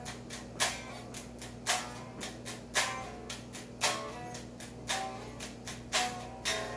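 Electric guitar being picked: short notes, each starting with a sharp pick attack, with a strong stroke about once a second and lighter ones between. A steady low electrical hum runs underneath.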